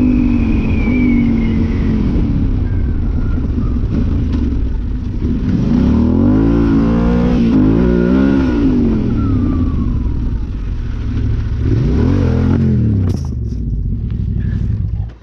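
Yamaha Ténéré 700's parallel-twin engine, fitted with an Arrow high exhaust, revving up and down under throttle, its pitch rising and falling several times. The engine sound drops away near the end.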